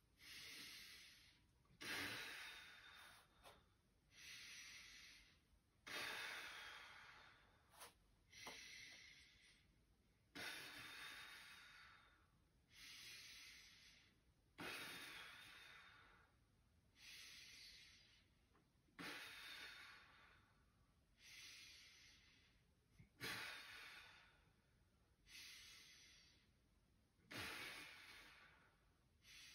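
A man breathing slowly and deeply, the controlled counted breaths of a held stretch. Each breath in and out is a faint hiss of about two seconds, about seven full breaths in all.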